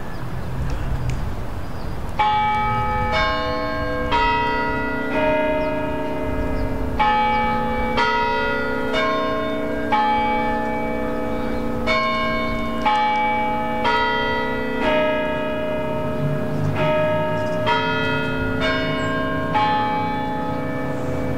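Cathedral tower bells ringing, one bell struck about every second in a shifting order of pitches, each note ringing on under the next. They begin about two seconds in, over a low background rumble.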